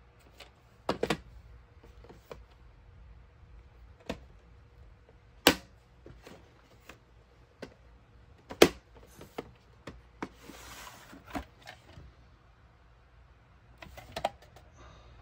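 VHS tape cases being handled and set down on a wooden floor: a string of sharp clacks and knocks, the loudest about five and a half and eight and a half seconds in, with a short scrape about ten seconds in.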